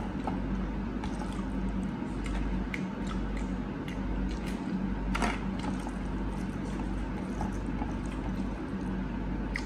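Fingers mixing rice and curry on a stainless steel plate: soft wet squishes and a few faint clicks over a steady low background hum and hiss.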